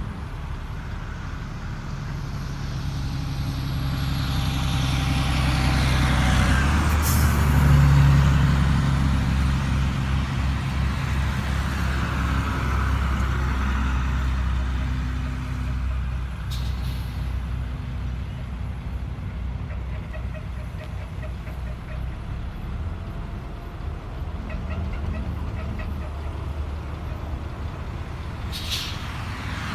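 Highway traffic with heavy trucks: a low diesel engine rumble and tyre noise swell to a peak about eight seconds in as traffic passes, then ease off. Three brief sharp hisses cut in, at about seven seconds, about sixteen seconds and near the end.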